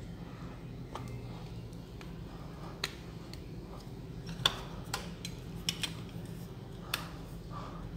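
Scattered small clicks and taps from handling a Nokia 6700 Classic mobile phone: the battery pressed into place and the metal back cover slid and snapped shut, the sharpest click about four and a half seconds in. A low steady hum runs underneath.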